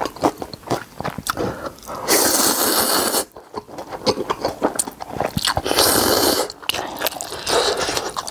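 Close-miked slurping and chewing of instant ramen noodles. Two long, loud slurps come about two seconds in and about six seconds in, with wet chewing and mouth clicks between them.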